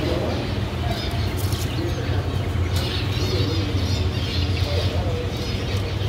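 Caged canaries chirping and twittering in short high phrases, busiest from about halfway on, over a steady low hum.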